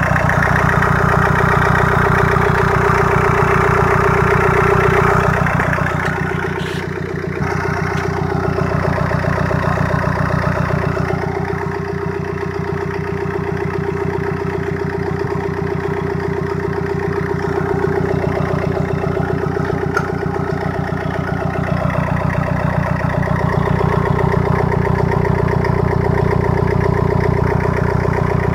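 Renault dCi four-cylinder diesel engine idling steadily, heard up close in the open engine bay.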